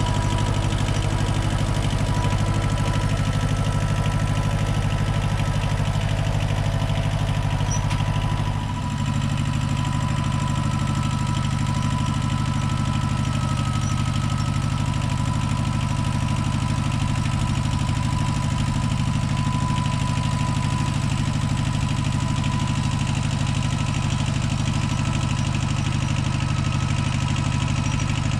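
Compact tractor engine running steadily, with a thin steady whine above it; the engine note shifts slightly about nine seconds in.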